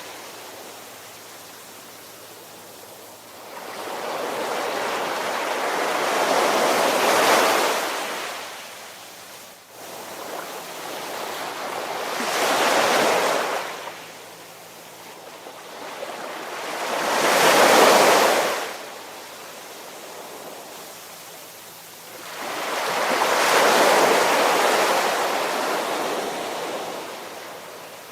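Ocean waves washing in, four swells of rushing surf about five seconds apart with quieter lulls between; the third is the loudest.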